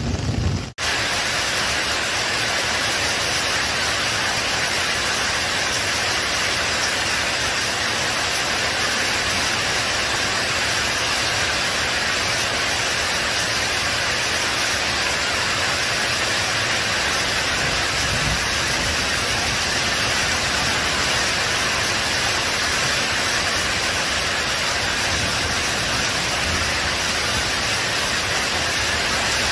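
Steady, unbroken rush of heavy rainfall and running floodwater. It starts abruptly just under a second in.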